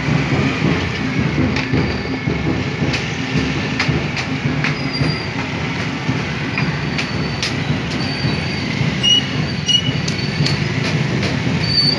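Many motorcycle and scooter engines running at low speed as a slow column of bikes rolls past, a steady dense rumble. Several short high-pitched peeps sound in the second half.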